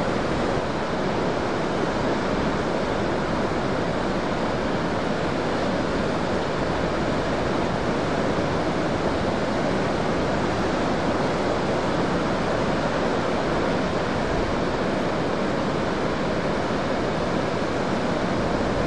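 Heavy ocean surf breaking, a steady rushing wash of noise with no single crash standing out.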